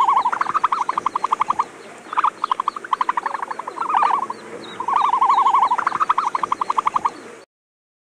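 An animal calling in runs of rapid pulsed trills, each run lasting one to two seconds and repeated four or five times. It cuts off suddenly near the end.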